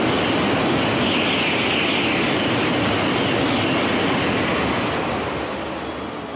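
Shinkansen Nozomi express running through the station at about 300 km/h: a loud, steady rush of wind and wheel noise that holds for about five seconds, then fades as the train clears the platform.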